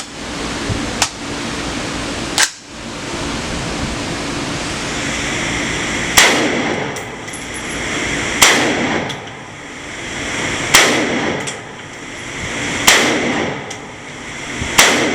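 Five gunshots from an AR pistol, about two seconds apart, starting about six seconds in, fired as a group to zero its scope. Two sharp clicks come before the shots, and a steady hiss runs between them.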